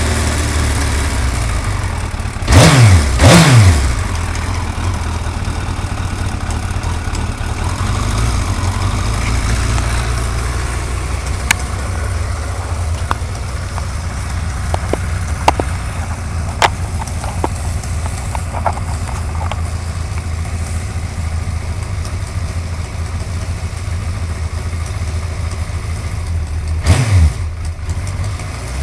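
Suzuki GSX-R1100 inline-four engine idling steadily, revved briefly twice a few seconds in and once more near the end, with faint scattered clicks in the middle stretch. It is being run to show a ticking noise.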